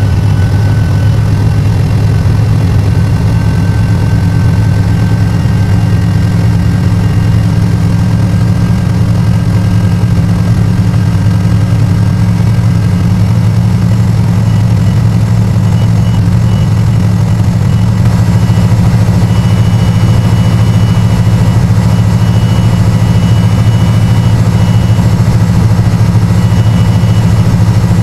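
1984 Camaro Z28's carbureted 5.0 L HO V8 idling steadily, played back at four times speed, so it sounds faster than the real idle. It is still running incorrectly with the replacement ECM fitted.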